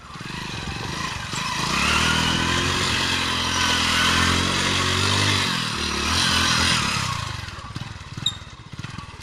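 Small commuter motorcycle engine revved hard while the rear tyre spins on loose dirt, with a hiss of spraying grit over it. The revs hold high for several seconds, dip briefly, pick up again and then die away near the end.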